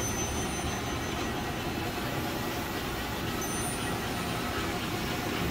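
Model trains running on a large layout: a steady, even rumble of toy trains on the track.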